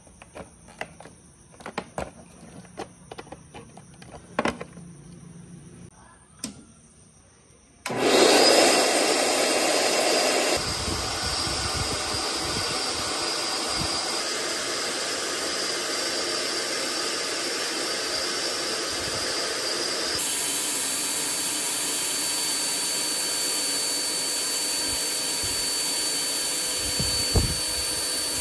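A few light clicks and knocks, then the restored artificial-snow machine's blower motor switches on about eight seconds in and runs steadily with a loud whirring rush.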